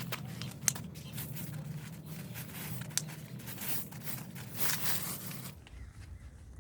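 Irregular scraping and rustling strokes with two sharp clicks, over a steady low hum that stops near the end.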